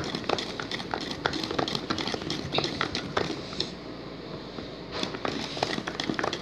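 Glue and liquid laundry detergent being stirred with a pencil in a small container as they start to form slime: irregular small clicks and crackles.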